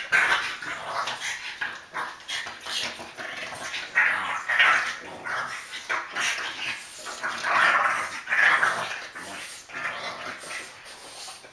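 Two French bulldogs play-fighting, growling in repeated rough bursts, loudest about four to five and eight seconds in.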